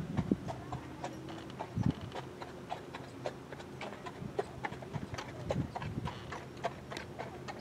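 A horse's hoofbeats: a run of irregular clicks with a few heavier thuds, over a steady low hum.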